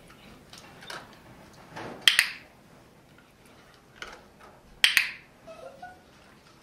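A dog-training clicker clicked twice, about three seconds apart, each a sharp double click from pressing and releasing it. The clicks mark the behaviour being shaped, each one promising the dog a treat.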